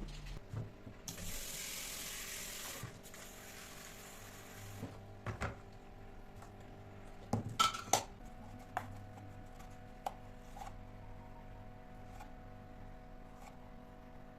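Household handling sounds: a hiss lasting about two seconds that fades away, then scattered clicks and knocks of objects being handled, over a faint steady hum.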